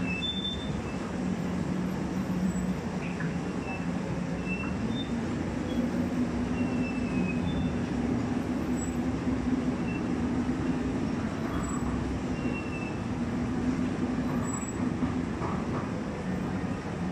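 Cave tour tram running steadily along the roadway: a steady low hum over a noise haze, with a few faint short high squeaks now and then.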